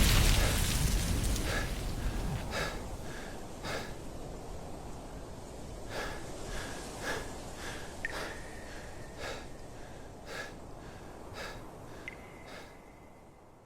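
The rumble of a huge boom dies away over the first few seconds. Then come faint, irregularly spaced short plinks with a slight ring over a low, hollow ambience, fading out near the end.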